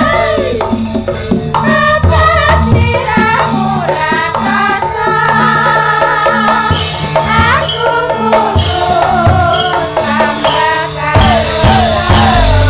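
Javanese gamelan music with female sinden voices singing a melody through microphones, over steady hand-drum and rattling percussion.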